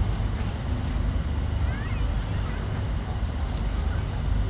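Steady low outdoor background rumble with no distinct event, plus a faint short high chirp a little under two seconds in.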